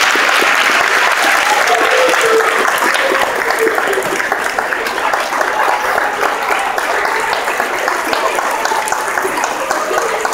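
A large audience clapping: dense, loud applause that eases off slowly, with a few voices heard through it.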